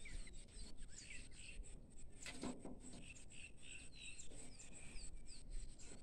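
Birds chirping faintly in the background: short, quick chirps repeated throughout.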